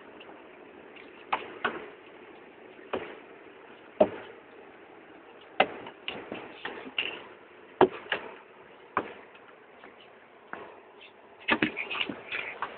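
Scattered knocks and taps of a toddler's hands and knees on wooden steps as he climbs, one every second or so, with a quick run of them near the end.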